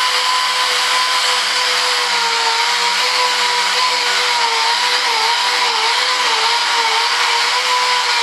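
Harbor Freight dual-action (DA) sander running steadily against a primed fibreglass board: a steady whine over a hiss, the pitch dipping slightly now and then as it is pressed into the work.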